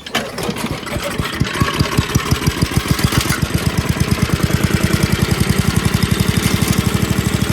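Six-horsepower Tecumseh single-cylinder engine on a Craftsman wood chipper starting up. Its firing beats quicken over the first couple of seconds, then settle into a steady, even run at low speed. The throttle does nothing, which the owner puts down to the missing rod between throttle and governor.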